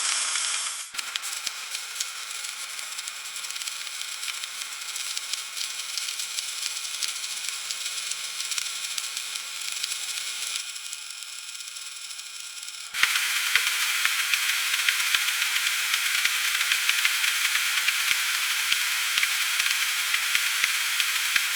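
Freezing rain: a steady hiss with dense fine ticking of ice pellets. It drops abruptly about a second in and jumps back louder and brighter about thirteen seconds in.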